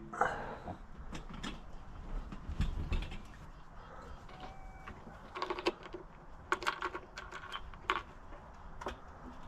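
Irregular clicks, knocks and brief clinks of objects being handled, with a few short metallic rings about halfway through and again near the end.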